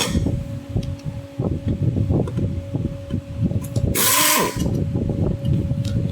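Electric screwdriver running in two short bursts, one at the start and one about four seconds in, backing out screws from a smoke gun's housing; between them, plastic parts and screws knock and rattle as the casing is handled.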